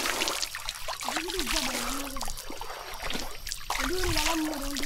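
Hill stream water trickling and splashing over rocks, with a person's voice heard briefly twice over it.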